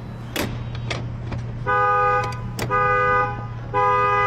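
Car alarm honking the vehicle's horn in a steady on-off rhythm, short blasts about once a second. It starts a little under halfway through, after two sharp clicks.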